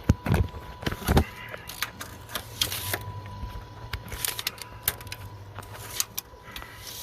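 Irregular clicks and light knocks of metal parts being handled, with a few louder clanks in the first second or so.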